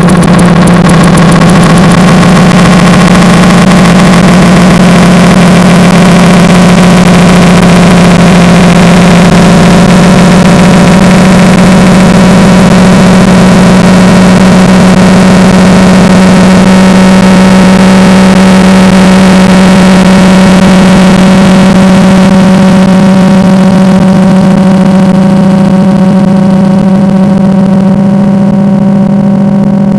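A loud, steady drone: one strong low hum with many fainter steady overtones above it, unchanging in pitch, its treble thinning near the end.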